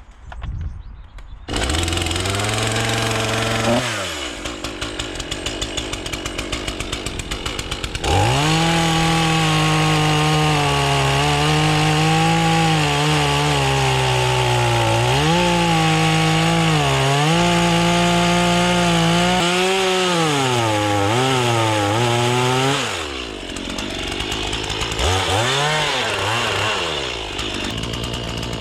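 A Stihl chainsaw starts up about a second and a half in and idles. About eight seconds in it goes to full throttle and stays there for about fifteen seconds, its pitch dipping again and again as the chain bogs into the wood. It then drops back toward idle, with a couple of short revs near the end.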